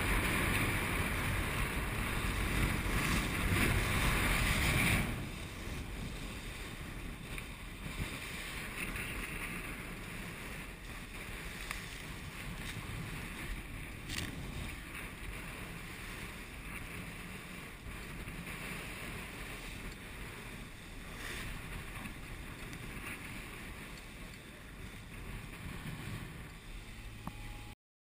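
Wind buffeting the microphone and water rushing past a sailing yacht's hull under way. It is loud for about the first five seconds, then drops suddenly to a quieter steady rush of the wake, with a few faint ticks, and cuts off just before the end.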